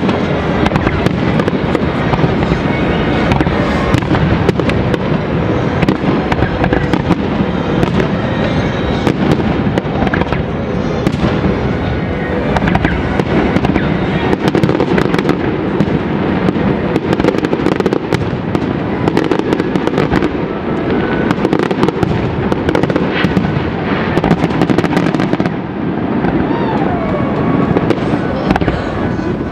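Professional fireworks display: aerial shells bursting in rapid, overlapping succession, a dense run of bangs and crackles with no break.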